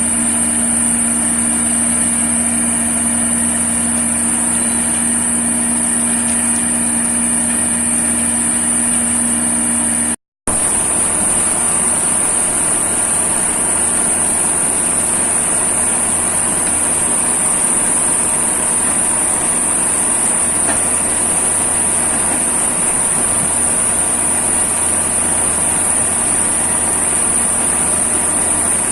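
Self-loading concrete mixer's diesel engine running steadily, with a steady high whine over it. The sound drops out for an instant about ten seconds in and then resumes with a slightly different tone.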